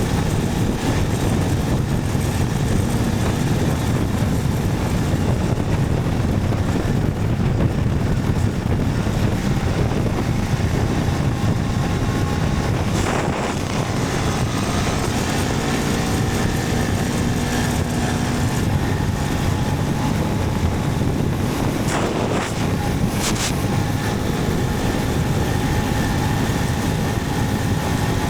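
Motorcycle riding at a steady cruise: the engine running under a constant rush of wind and road noise, with a few brief swishes near the middle and end.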